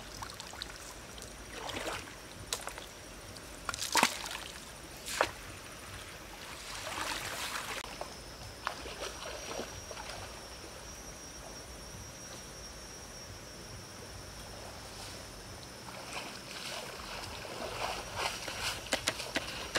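Stream water sloshing and splashing as a woven bamboo basket is dipped and lifted in the shallows, water draining out through the weave, with several sharp splashes in the first half. Then a quieter stretch of flowing water with a thin steady high tone, and a few small splashes near the end.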